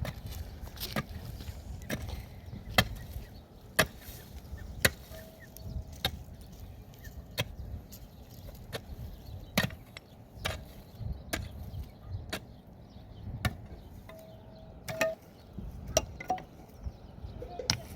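Repeated sharp blows of a hand tool, about one a second and irregularly spaced, like chopping or hammering during building work.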